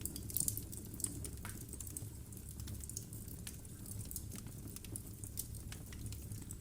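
Logs burning in a fireplace, crackling with irregular sharp snaps and pops over a steady low rumble of the fire.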